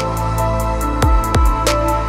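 Instrumental background music with held chords and a steady beat.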